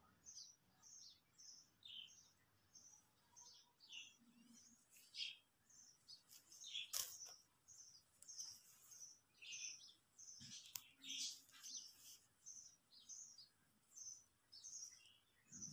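Faint bird chirping: short, high chirps repeated about two a second, with a couple of soft clicks partway through.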